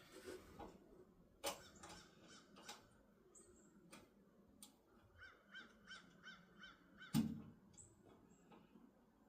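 Faint clicks and taps of tools and small parts being handled, with a louder knock about seven seconds in. Just before the knock comes a quick run of about eight short squeaky chirps, about four a second.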